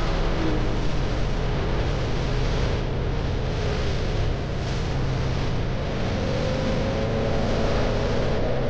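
Wind rushing over the microphone of a moving motorbike, with the engine's drone underneath. The engine note rises slightly in the last few seconds as the bike speeds up.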